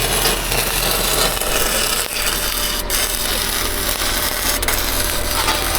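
Electric arc welding on steel I-beams: the arc's steady, dense crackle and sizzle over a low steady hum.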